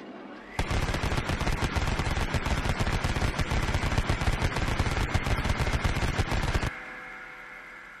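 Vulcan rotary (Gatling-type) machine gun: a whine rises as it winds up, then it fires one continuous, very rapid burst of about six seconds, and a whine fades away after the firing stops.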